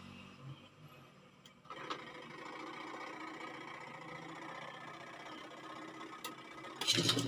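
Freshly replaced electric motor of a twin-tub washing machine switched on by the timer with a click about two seconds in, then running with a steady hum as it turns. A short, louder clatter comes near the end.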